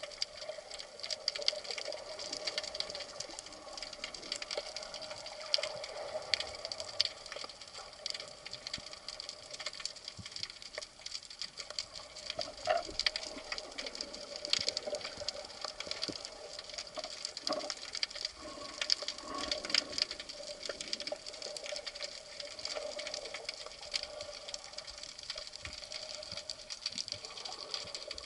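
Underwater ambience recorded beside a rocky reef: a dense, continuous crackle of small clicks over a faint steady hum.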